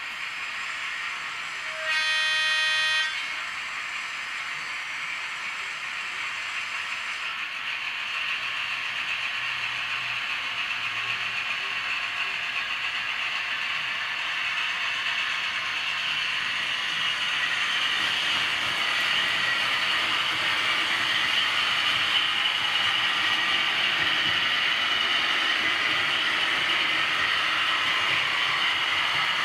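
Model V200 diesel locomotive sounding its horn once, briefly, about two seconds in, then running along the track with a steady rolling and running noise that slowly grows louder.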